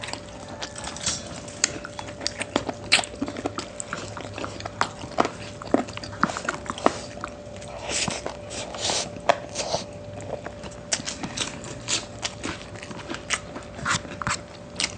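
Close-miked chewing, with many quick irregular wet mouth clicks, of people eating braised chicken and pork adobo with rice.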